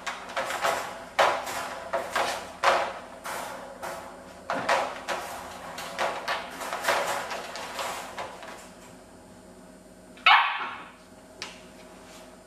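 A puppy barking in a quick run of short, repeated barks for the first eight seconds or so, then one louder single bark or yelp a little past ten seconds.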